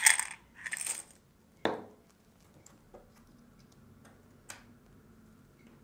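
Plastic counters rattling in a plastic pot as it is shaken, ending just after the start, then one knock about a second and a half in. After that come a few light separate clicks as counters are set down one at a time on a card on the table.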